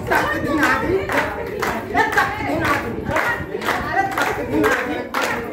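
A group of adults clapping together in a steady rhythm, about three claps a second, while singing and chanting a group rhyme.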